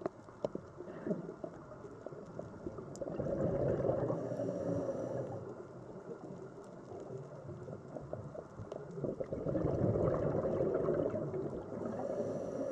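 Scuba diver's regulator exhaust bubbles underwater: two bouts of bubbling about six seconds apart, each lasting about two seconds, over a steady crackle of small clicks.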